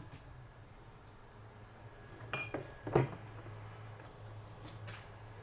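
Cookware knocking and clinking on a stovetop as a pot is set on the burner: a couple of light clinks with a short ring, then a louder knock about three seconds in, over a steady low hum.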